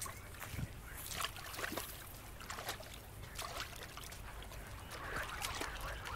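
Boots wading through shallow bog water and mud, with irregular splashing and sloshing steps.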